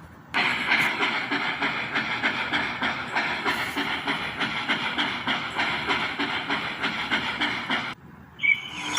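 Steam locomotive sound effect: a train running with a steady, rhythmic, hissing noise. It starts abruptly about a third of a second in and cuts off about a second before the end, where a different effect begins.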